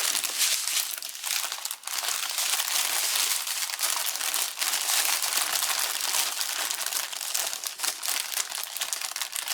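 Plastic packaging of a diamond painting kit crinkling and rustling continuously as it is handled.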